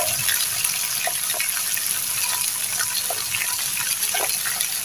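Green shoots and leaves frying in hot oil in a wok, a steady sizzle with scattered small pops and clicks.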